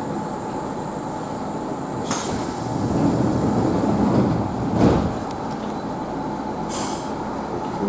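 Running noise inside a Yoro Railway train car in motion: a steady low rumble from wheels and running gear that swells from about three seconds in. Short hisses sound about two, five and seven seconds in.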